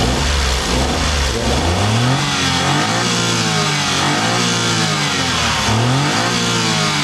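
Suzuki Every DA17V's R06A three-cylinder VVT engine running with the air conditioning on and being revved up and down several times, the pitch climbing and falling in turn.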